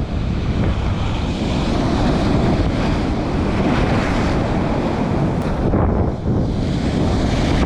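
Heavy surf from a big swell breaking against rocks, loud and continuous, with wind buffeting the microphone.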